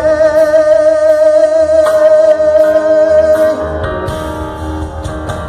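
Worship song: a singer holds one long note with a slight vibrato for about three and a half seconds over guitar accompaniment, then the note fades.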